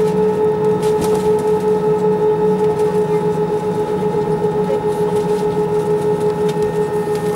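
Airbus A318 cabin sound with the CFM56 jet engines at low thrust while the aircraft taxis: a steady, one-note engine whine over a low rumble that pulses slightly a few times a second.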